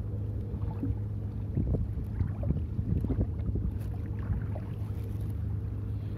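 Small choppy waves lapping and slapping against a kayak's hull, with wind buffeting the microphone and a low steady hum underneath.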